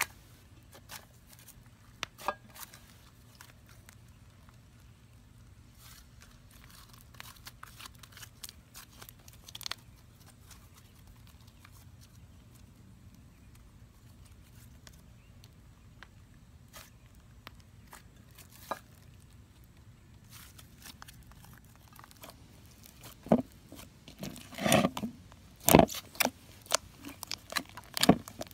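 Hands kneading and squeezing slime mixed with Model Magic clay: scattered small sticky clicks and crackles, turning into a quick run of louder squishing and popping near the end.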